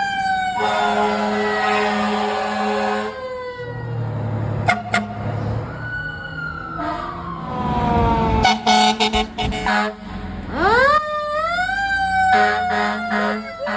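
Fire truck air horns and siren sounding together: one long air horn blast, then two bunches of short blasts, over a siren whose pitch slides slowly down, sweeps sharply up about ten seconds in, and slowly falls again.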